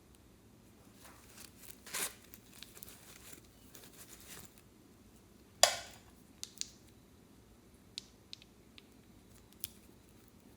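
Small handling sounds of makeup and slime supplies: a brief crinkling rustle about two seconds in, a loud sharp click or snap near the middle, then a few light ticks.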